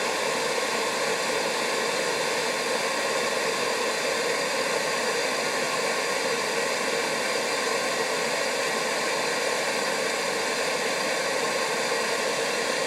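Bentone domestic oil burner starting up, its fan motor running steadily and blowing air in the pre-purge timing before the solenoid valve opens to spray fuel.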